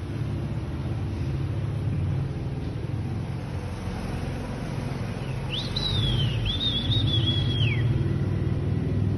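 A steady low rumble, with a thin, high, wavering whistle-like call lasting about two seconds midway, falling away at its end.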